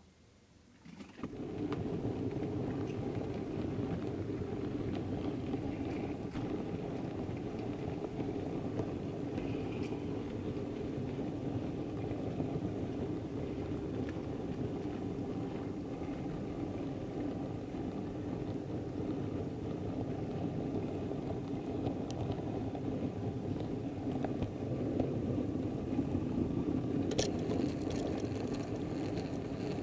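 Model railway train rolling along the track, a steady rumble of wheels on rail and motor hum heard from a wagon in the train. It starts abruptly about a second in, with a sharp click near the end.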